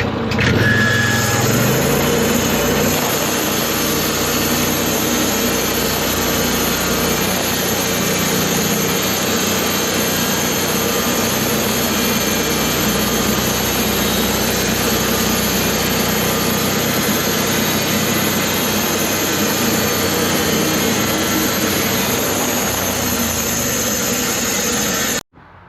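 Sawmill's engine running steadily while sawing cedar, its speed rising over the first couple of seconds. The sound cuts off abruptly near the end.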